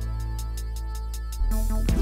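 Electronic background music: a sustained low bass under quick, even hi-hat-like ticks, with heavy drum beats coming back in about a second and a half in.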